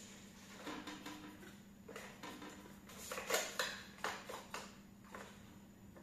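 Light scraping and clicking on the plastic of a robot vacuum as caked dust is picked off its underside with a small stick, in scattered irregular strokes, the sharpest about three seconds in.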